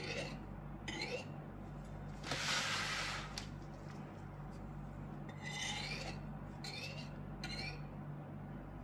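A knife blade scraping along the rim of a metal tart ring as it trims excess shortcrust dough. There is one loud rasping scrape about two seconds in and several shorter scrapes later, over a low steady hum.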